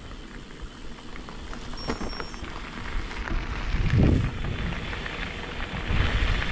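Footsteps pushing through forest undergrowth, with dry twigs and brash crackling and snapping underfoot and heavier thuds of steps about four and six seconds in.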